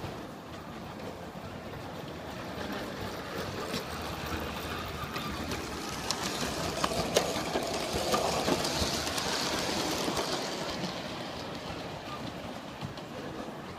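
G-scale model train running along its track, a steady rolling rumble with scattered clicks from the wheels. It grows louder as the train nears, is loudest a little past the middle, then fades.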